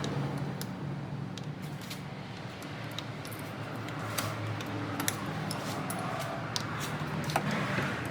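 Hand tools working on the AC compressor's mounting bolts: scattered light metallic clicks and taps at an uneven pace, over a steady low hum in the background.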